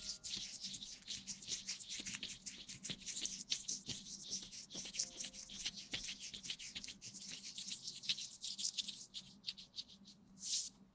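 Close-microphone ASMR rustling and rubbing: rapid scratchy strokes one after another, thinning out about nine seconds in, with one more brief rush near the end.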